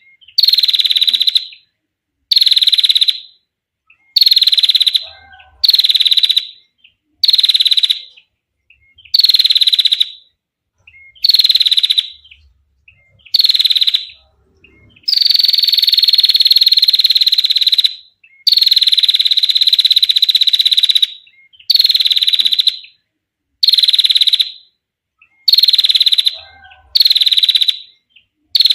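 Female prinia giving its rapid ticking trill, repeated in bouts of about a second with short pauses between them. Two longer bouts of about three seconds come midway.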